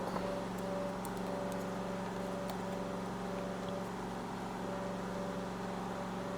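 Steady low background hum with a few faint steady tones, like a fan or mains hum in the room; a single sharp click comes at the very end.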